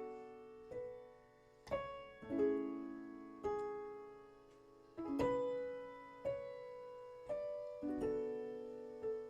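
Background piano music: a gentle, slow melody of single struck notes and chords, each ringing and fading before the next.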